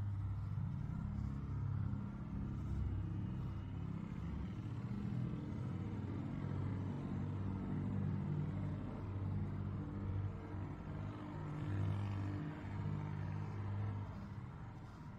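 Steady low engine drone with a constant hum that rises and falls only slightly.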